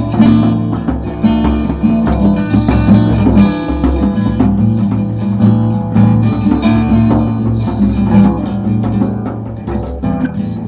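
Music: guitar playing a passage of plucked notes and strums over sustained low notes, easing off slightly near the end.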